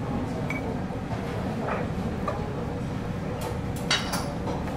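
Steady low room hum with a few soft clicks, then about four seconds in a sharp knock as a glazed stoneware plate is set down on a wooden counter.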